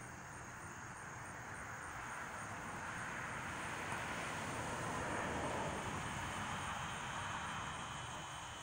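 Distant jet airplane passing overhead: a broad, noisy rumble that swells slowly, peaks about halfway through and fades again. Crickets keep up a steady pulsing trill behind it.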